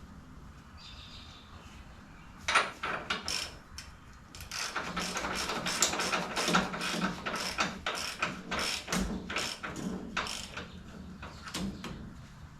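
Hand tools working on a motorcycle engine: a run of sharp metallic clicks and knocks, several a second, starting about two and a half seconds in and thinning out near the end.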